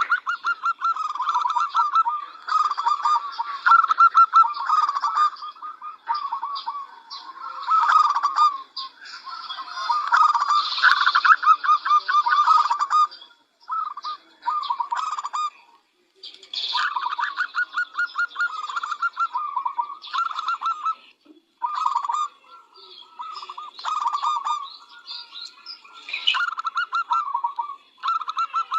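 Zebra dove (perkutut) cooing: repeated phrases of rapid staccato notes, each lasting a few seconds with short breaks between, plus fainter higher chirps above them.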